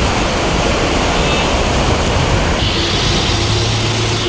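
Loud, steady rush of fast-flowing floodwater. A low hum joins about three seconds in.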